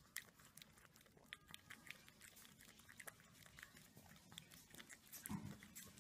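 A small puppy lapping milk from a glass: faint, quick wet tongue clicks, irregularly spaced, with a brief louder low sound about five seconds in.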